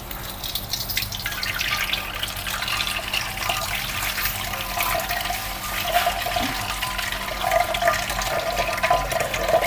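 Tap water running onto boiled instant noodles and sausage pieces in a metal strainer, splashing through the noodles into the sink as fingers rinse and toss them.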